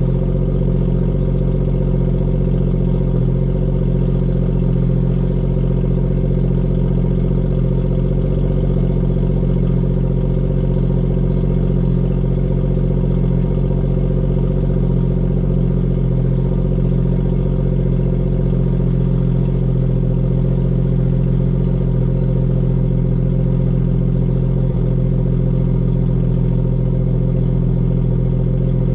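BMW 340i's decatted B58 turbocharged straight-six idling steadily, with an even low drone that does not rise or fall.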